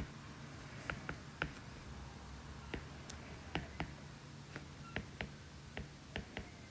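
Stylus tip tapping on a tablet's glass screen while handwriting: light, irregular clicks about three a second, over a faint low hum.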